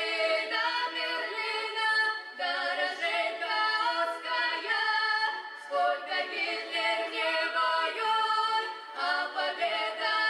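Two young women singing a song together without instrumental accompaniment.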